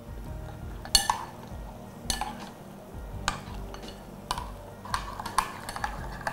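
A metal spoon stirring rice flour into coconut milk in a glass bowl, clinking against the glass about once a second and more often near the end, as the lumps are mixed out.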